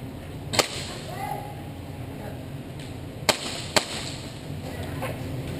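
Airsoft gas blowback pistol firing sharp single shots: one about half a second in, then two close together around three and a half seconds in, and a fainter crack near the end.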